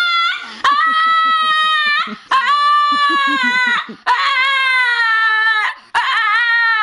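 A dog giving long, drawn-out howling whines, four in a row, each about a second and a half long, holding a steady pitch and sagging slightly at the end.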